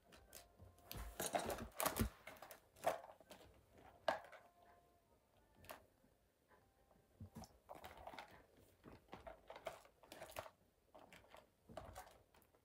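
Quiet, irregular clicks, taps and rustles of hands handling rubber loom bands on a plastic loom.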